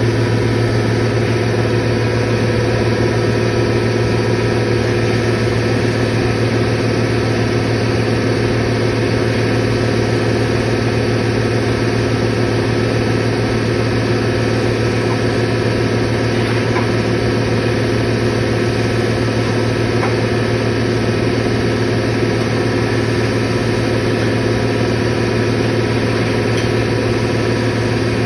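Steady machinery hum from a running belt-driven open-drive compressor and motor: a strong low drone with several steady higher tones, unchanging throughout.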